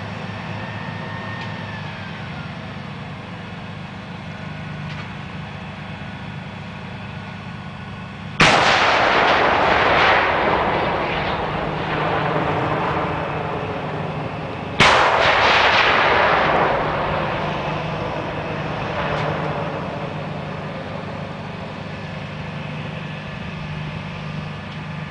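Two field artillery howitzer shots about six seconds apart, each a sudden blast followed by a long rolling echo that dies away over several seconds. A steady low hum runs underneath.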